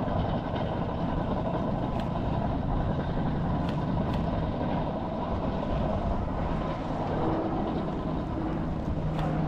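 Steady low rumble of a vehicle engine and road noise, with a faint steady hum and a few light clicks.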